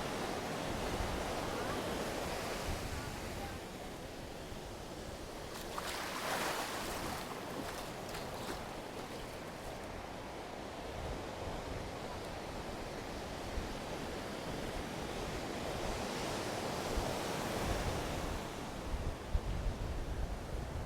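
Ocean surf breaking and washing up the beach, swelling in a few times, with wind rumbling on the microphone near the end.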